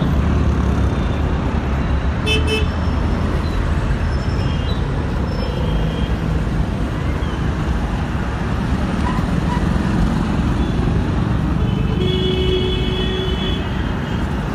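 Steady street traffic noise, with a vehicle horn sounding briefly near the end.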